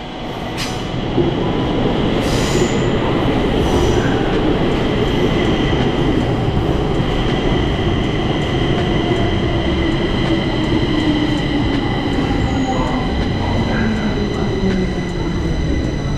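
A Stockholm metro train pulls into an underground station. Its wheels rumble on the rails with a steady high squeal over them, and there are a few sharp clacks in the first few seconds. In the second half a low motor hum falls in pitch as the train slows for the stop.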